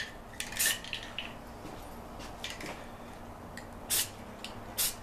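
Aerosol spray-paint can fired in several short bursts, each a brief hiss, with gaps between them.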